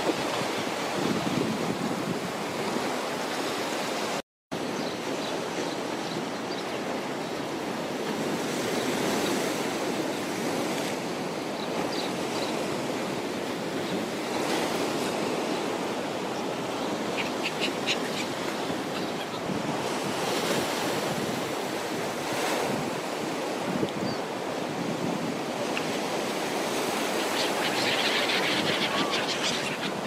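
Storm surf on the Black Sea: waves breaking and washing in against a concrete shore and breakwater, a steady rushing wash, with some wind on the microphone. The sound drops out for a moment about four seconds in.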